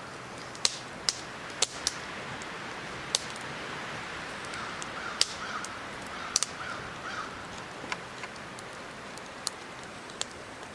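Scattered sharp clicks and taps of a knife working along an eel's backbone on a wooden cutting board. A crow caws a few times in the background about halfway through.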